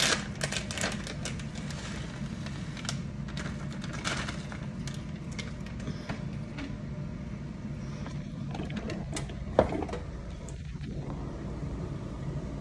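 Plastic bag of grated Parmesan crinkling as the cheese is shaken out over a skillet, in short rustles during the first few seconds, over a steady low hum. A single sharp click comes a little under ten seconds in.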